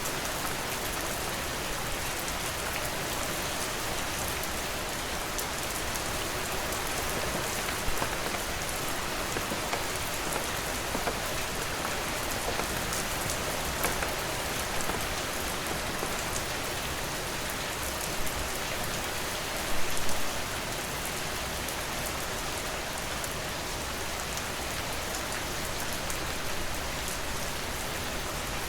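Steady rain falling, an even hiss of many drops with individual drips ticking through it. A brief cluster of louder drop hits comes about twenty seconds in.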